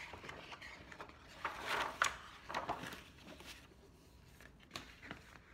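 Pages of a large paper picture book being turned and handled: paper rustling with a few soft knocks, loudest about a second and a half to two seconds in.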